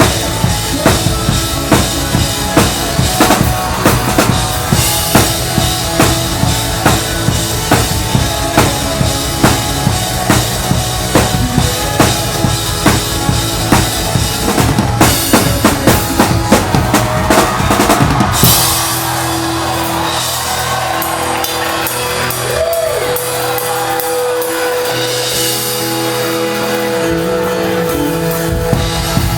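Live drum kit played with a full worship band: a steady beat of kick and snare with cymbals, building to a burst of fast fills. About two-thirds of the way in the drums drop out, leaving the band holding sustained keyboard chords and bass. The drums come back in near the end.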